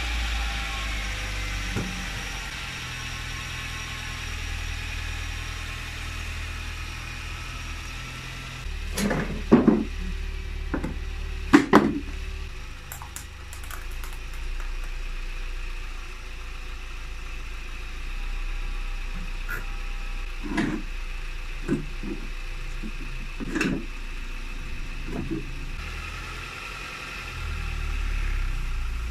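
Hyundai Tiburon's 2.0-litre Beta II four-cylinder engine idling steadily just after a cold start. Several sharp knocks and clatters sound over it, the loudest about ten and twelve seconds in, and the later ones as plastic drive-on ramps are set in place in front of the wheels.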